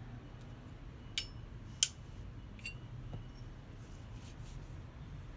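A few light metallic clinks of forged steel blacksmith tongs being handled, each a sharp tick with a brief high ring, the loudest just under two seconds in.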